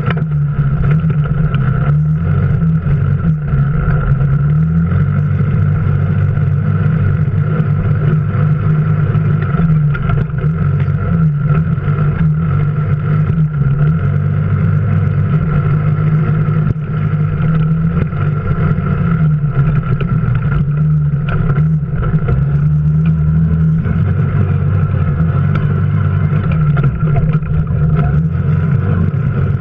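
An off-road vehicle's engine running steadily while driving over a rough dirt trail. The engine note rises and falls a little as the throttle changes, with a steady high whine over it.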